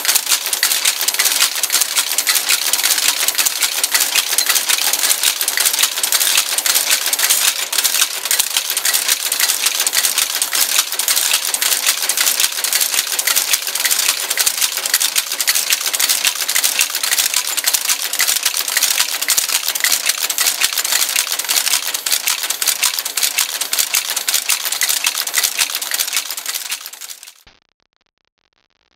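Monotype composition caster casting type from a punched paper ribbon: a dense, rapid mechanical clatter of clicks as the mechanism cycles, fading out near the end.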